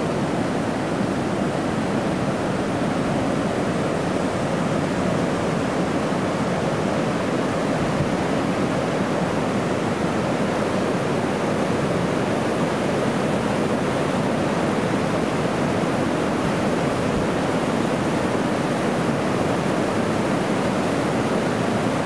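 River in flood rushing over rapids and pouring through a concrete dam's sluiceways: a steady, unbroken rush of whitewater.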